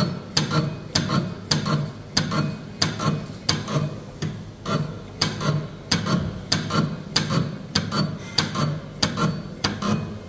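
Manual rotary microtome being cranked to cut sections from a paraffin tissue block, its mechanism clicking steadily about two to three times a second with a low rumble between clicks. The section ribbon is just starting to form.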